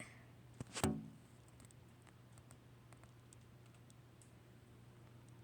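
Faint scattered clicks and taps over a low steady hum, with one louder knock about a second in.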